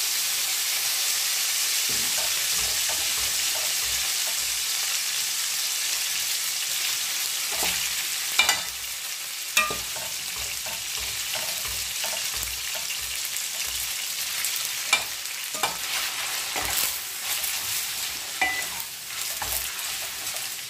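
Spaghetti sizzling in hot oil in a frying pan, a loud steady hiss that eases after about eight seconds. Occasional sharp clicks and knocks come from the tongs and wooden spoon against the pan as the pasta is tossed.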